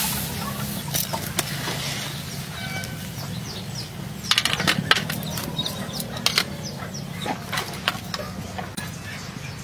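Scattered knocks and clatter as a steamed lobster's shell and the cooking utensils are handled, over a steady low hum, with chickens clucking in the background.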